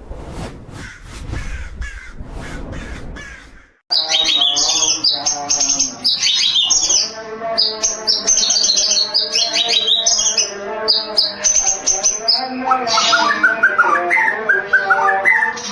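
White-rumped shama (murai batu) singing a loud, continuous run of varied whistles and chattering phrases, starting abruptly about four seconds in. Before that there is a lower rustling noise with a few clicks.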